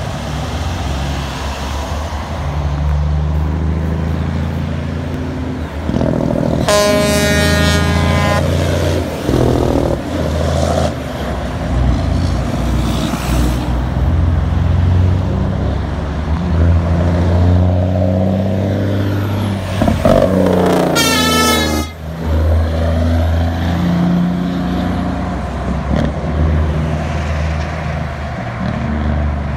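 Semi trucks' diesel engines running heavily as the convoy passes. A loud truck air horn sounds about seven seconds in, and a second, wavering horn blast about twenty-one seconds in.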